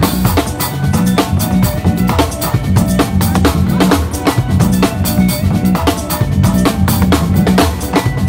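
Acoustic drum kit played at high speed: dense, rapid strokes across toms, snare and bass drum, with cymbal hits.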